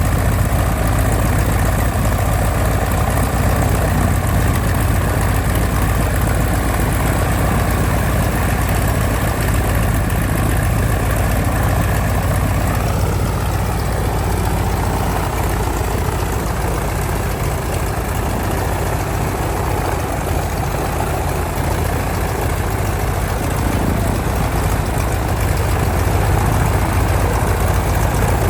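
Radial engine of a vintage WWII trainer airplane idling steadily on the ground, with a slight shift in its tone about halfway through.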